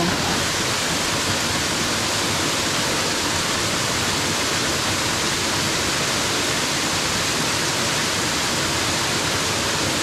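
Waterfall pouring into its pool: a steady, even rush of falling water.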